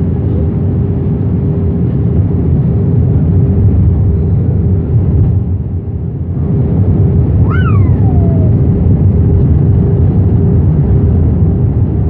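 Jet airliner cabin noise: a steady loud rumble of engines and airflow with a constant low hum. It eases briefly about halfway through, and a short falling squeal sounds just after.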